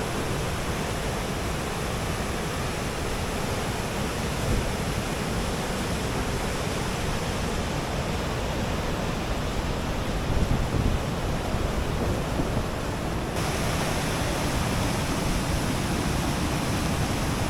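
Waterfall in heavy spring snowmelt flow: a steady, even rush of falling water.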